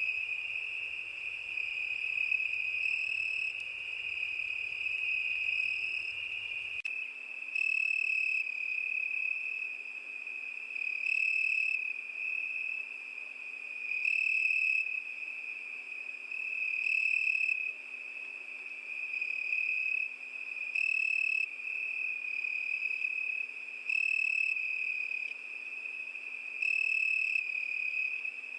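Crickets chirping: a continuous high trill, with a louder chirp swelling out of it about every three seconds.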